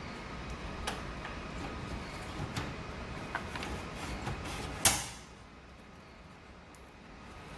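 Several light clicks over a steady background hiss, with one sharp, loud click about five seconds in, after which the background is noticeably quieter.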